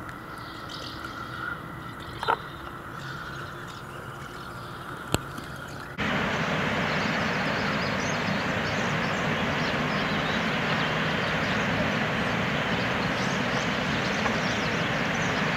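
Outdoor ambience: a quiet stretch with two short sharp knocks, then, about six seconds in, a louder steady noise haze.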